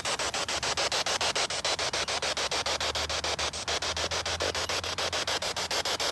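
A steady hiss of static chopped into rapid, even pulses, about nine a second, over a low hum.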